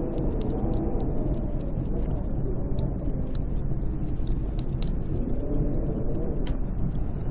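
Snowstorm wind blowing hard and steadily, its low howl slowly rising and falling in pitch, with scattered faint crackles throughout.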